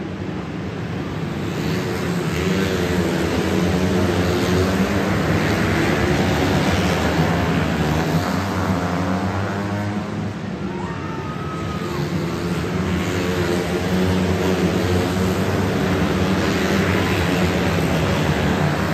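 Engines of a field of small winged sprint cars lapping an indoor dirt oval, a steady drone that swells twice as the pack comes around, echoing in a large metal-roofed arena.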